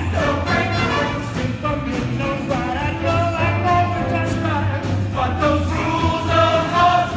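Live pit band playing up-tempo show music with a steady beat for a dance number, with voices singing along.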